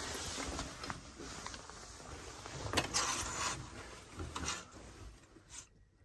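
Rustling and handling noise with a few light knocks and clicks over a faint low rumble; the loudest knock comes about three seconds in, followed by a short burst of rustling.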